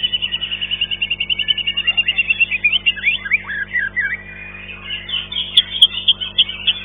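White-rumped shama (murai batu) singing in a contest cage: a fast even trill of about ten notes a second, breaking into varied whistled sweeps, then loud sharp repeated notes from about five seconds in. A steady low hum runs underneath.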